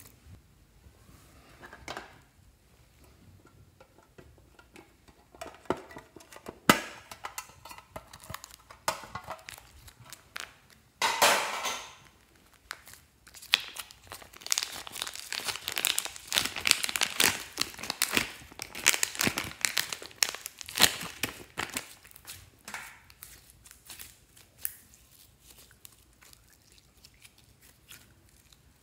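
Thin plastic zip-lock bag crinkling as it is handled and squeezed, a dense run of crackles through the middle, with scattered sticky clicks and pops of slime being pressed and stretched before and after.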